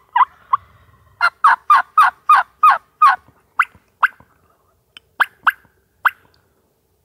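Turkey yelping: loud runs of short, two-note yelps, about four a second, first a run of eight, then a few spaced yelps near the end.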